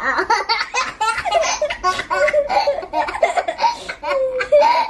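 A young girl and a toddler laughing together in repeated bursts of giggles.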